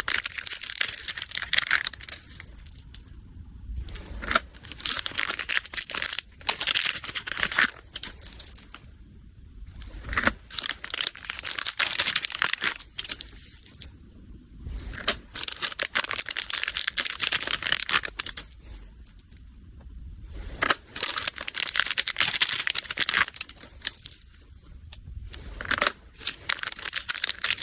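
Plastic packaging bags crinkling and rustling as they are handled, in irregular spells with short quieter gaps, plus occasional sharp clicks.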